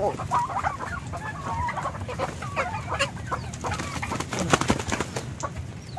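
Poultry, turkeys among them, clucking and calling in many short overlapping notes, over the steady hiss of heavy rain.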